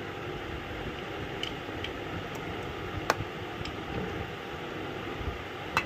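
A metal spoon scoops boiled rice in a steel pot, giving soft rustling and a couple of sharp clinks of spoon on pot, one about three seconds in and one near the end, over a steady background hiss.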